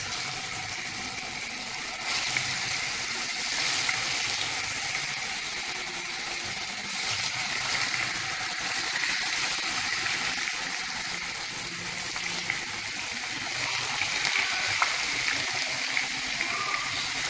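Cubes of tofu frying in hot oil in a wok: a steady sizzle with small crackles, swelling a couple of times as more pieces are dropped in with chopsticks.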